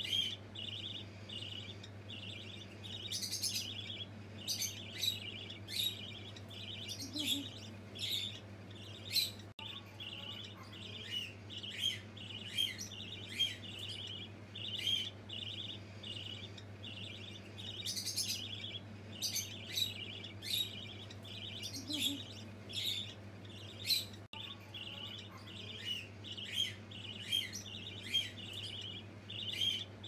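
Budgerigars chattering: a continuous run of short warbles and sharp chirps, over a steady low hum.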